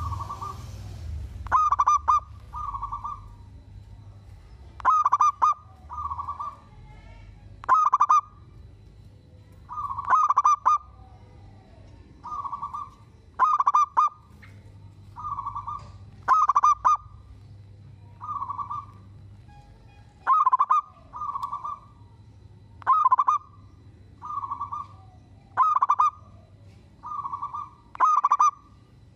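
Zebra dove (perkutut) singing: repeated trilled cooing phrases, one every two to three seconds, some loud and some softer.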